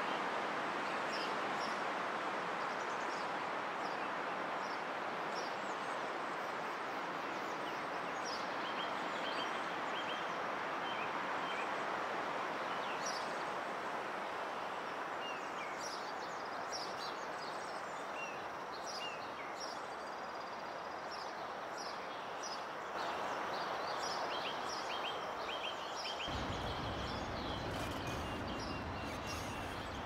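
Forest ambience: a steady rushing background with small birds chirping and trilling throughout. A low rumble comes in abruptly near the end.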